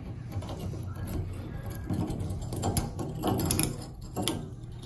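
Small metal clicks and scrapes of hand work on an old Delta single-handle shower valve body as its seats and springs are fitted. The clicks come fast and irregular, busiest in the middle, over a steady low hum.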